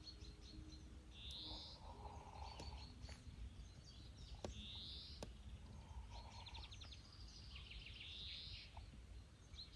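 Faint birdsong in open countryside: a few high, sliding calls spaced a couple of seconds apart and a fast trill near the end, over a steady low background rumble.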